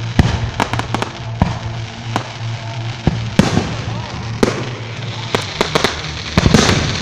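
Fireworks going off: a dozen or so sharp bangs at uneven intervals, with a denser cluster of cracks about six and a half seconds in.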